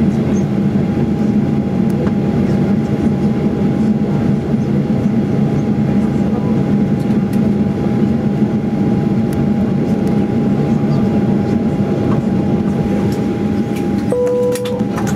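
The Boeing 737-800's CFM56-7 engines idling during the taxi to the stand, heard inside the cabin as a steady dense rumble with a thin steady whine over it. A short chime sounds near the end.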